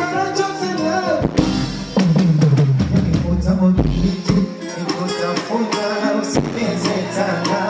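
Live band music at a sound check: a drum kit and guitar playing. Held notes fill the first second or so, then a low note slides downward from about two seconds in, and drum hits follow through the rest.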